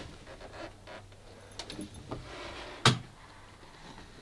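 Light clicks and rattles of small parts being handled, with one sharp click about three seconds in.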